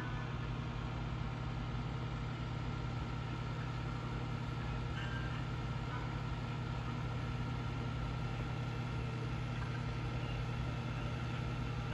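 Steady low mechanical hum that holds the same level and pitch throughout, with a faint thin tone above it.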